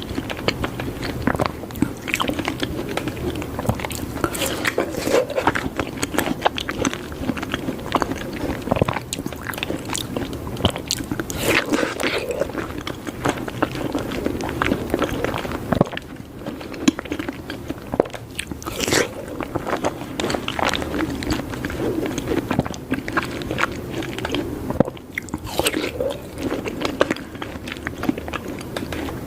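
Close-miked chewing and biting of papaya: dense, continuous wet mouth clicks and smacks, with brief lulls about halfway through and again near the end.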